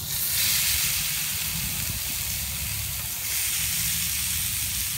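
Raw chicken and bacon-wrapped pork kebabs sizzling on the hot grid of a charcoal-fired Cobb grill. The steady hissing sizzle swells as each skewer goes down, once just after the start and again past the middle, over a low rumble.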